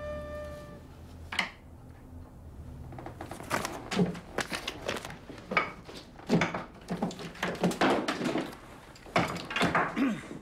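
Handling noise: a figurine and other small objects moved about on a wooden sideboard, with a run of irregular knocks and clatters that grows busier after a few seconds. Music fades out in the first second.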